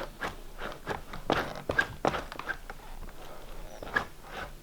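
Footsteps over a damaged floor, with irregular small knocks and clicks a few times a second.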